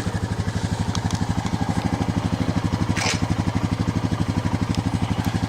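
Honda Foreman 500's single-cylinder four-stroke engine idling, with an even beat of about ten pulses a second. A brief click sounds about three seconds in.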